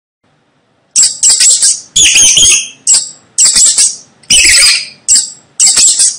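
Mouse squeaking: a run of about seven short, shrill, high-pitched squeak bursts in quick succession, starting about a second in.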